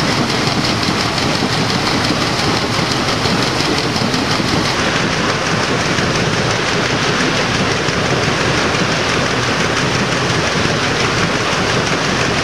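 Steady noise of a steam paddle steamer under way: the side paddle wheel churning the river, together with the boat's running machinery. The sound is even throughout, with slightly less hiss from about five seconds in.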